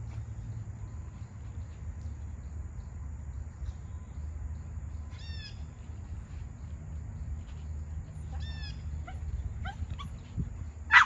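A small dog whining in short high cries twice, then a few quick yips, ending in one loud bark.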